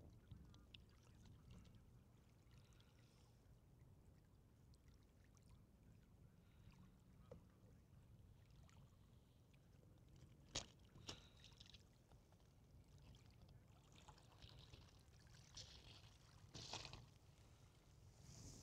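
Near silence: a faint low rumble, broken by two sharp clicks about ten and eleven seconds in and a few soft hissing bursts near the end.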